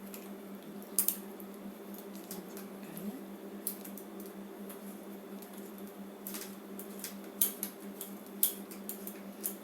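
Scattered small metal clicks and taps as Allen-head bolts are fitted into a scooter's handlebar clamp and turned with an Allen key, the sharpest about a second in and twice near the end, over a steady low hum.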